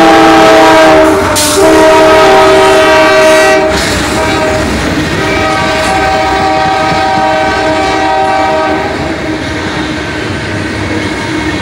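Diesel freight locomotive's multi-chime air horn blowing at a grade crossing: a loud blast, a brief break about a second in, a second loud blast, then the horn goes on more quietly until about three-quarters of the way through as the locomotives move on. Under it, freight cars rumble and clatter past over the rails.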